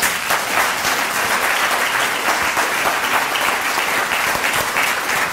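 Lecture-hall audience applauding, a dense, steady sound of many hands clapping.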